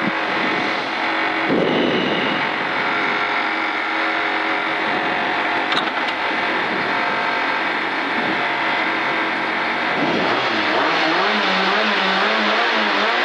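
Alfa Romeo 147 rally car's four-cylinder engine running with the car at a standstill, heard from inside the cabin. Near the end the revs rise and fall repeatedly in quick succession.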